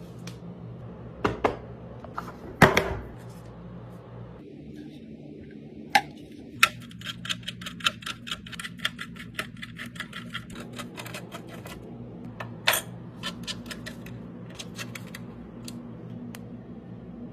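Light, sharp clicks and taps over a steady low hum, with a run of quick, even clicks, about four or five a second, through the middle.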